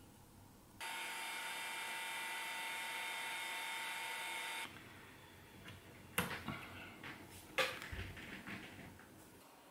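Handheld heat gun switching on about a second in and blowing steadily with a whine in its fan noise while shrinking heat-shrink tubing over a soldered wire joint, then cutting off abruptly. After it, a few sharp clicks and knocks with rustling as the cables are handled.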